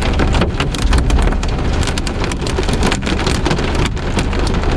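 Hail and rain pelting a car, heard from inside: a dense, uneven clatter of stones striking the roof and the Lexan shield over the windshield, over a low steady rumble. The hail is getting heavier.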